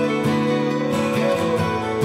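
Background music: a song led by guitar, with steady overlapping notes and a regular beat.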